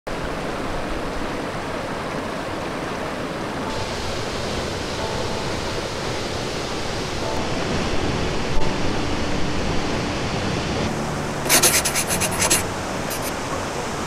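Waterfall pouring into a pool: a steady rush of falling water, with a few louder sharp bursts a little before the end.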